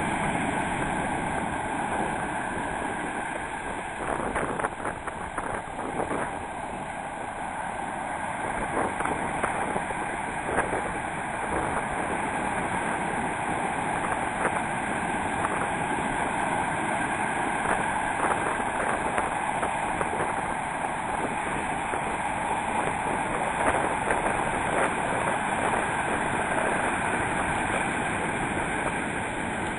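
Steady roar of breaking surf and rushing water, with no distinct strokes and only slight rises and falls.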